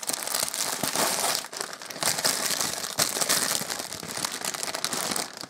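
Tissue paper crinkling and rustling continuously as hands untie a ribbon and pull the wrapping open to unwrap a gift.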